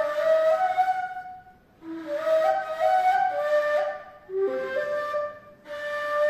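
Ney, the Turkish end-blown cane flute, played solo in a free improvisation (taksim) in makam Hicaz: breathy held notes that step from pitch to pitch. The phrases are broken twice by brief pauses for breath.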